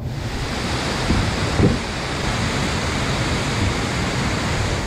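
Whitewater rapid of a river in flood, rushing steadily, with a low bump about a second and a half in.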